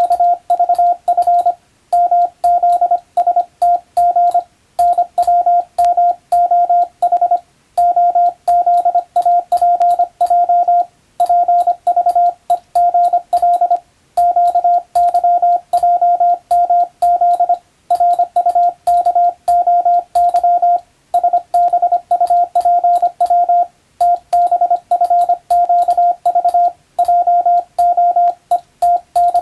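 Morse code (CW) practice tone: a single steady beep keyed on and off rapidly in dots and dashes, with short pauses between groups every second or so. It is sending international (Latin-letter) Morse of English telegram practice text.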